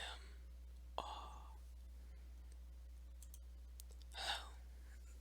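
Three soft, breathy sighs into a close microphone, the second opening with a small mouth click, over a faint steady low hum.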